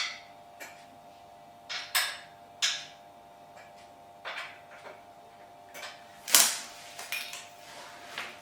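Irregular clicks, knocks and rattles of screws and desk parts being handled during assembly, with one louder knock about six seconds in. A faint steady tone runs underneath.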